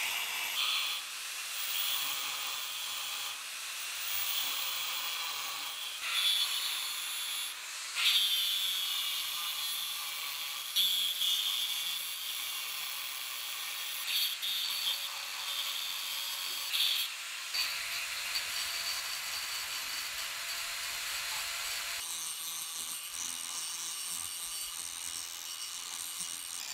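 Angle grinder with a thin abrasive disc grinding the edge of a hardened steel file blade: a steady, high hiss of metal being ground away, with a few brief louder peaks.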